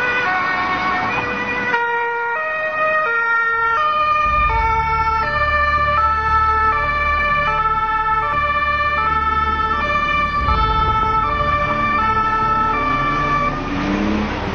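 Two-tone emergency siren of a German police car (Martinshorn), stepping between a high and a low note about every half second. After about two seconds the pattern changes and several siren tones overlap, over a low steady rumble from about four seconds in.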